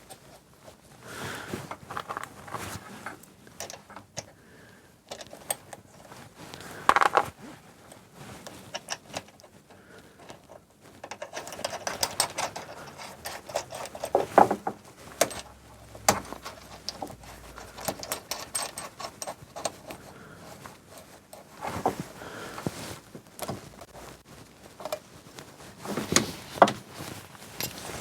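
Irregular metallic clicks, clinks and knocks of hand tools and small steel parts being handled and fitted during car assembly work, with a few louder knocks.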